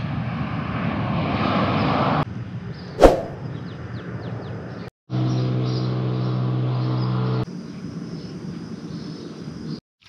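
Road traffic in a few short cuts: vehicles passing on a busy road, with one loud brief whoosh about three seconds in. Midway a steady engine drone with a low hum holds for a couple of seconds, then quieter traffic noise.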